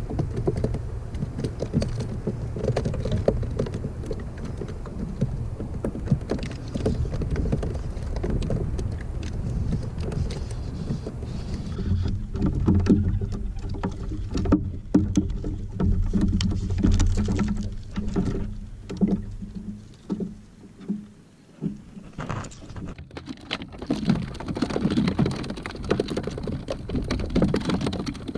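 Water sloshing and slapping against the hull of a plastic pedal fishing kayak on choppy open ocean, with scattered small knocks and clicks. A low steady hum joins in about twelve seconds in.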